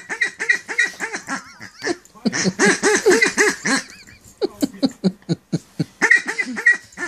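Orange rubber pig squeaky toy squeezed by hand in quick runs of honking squeaks, about five a second, with short pauses between runs and a few scattered squeaks in the middle.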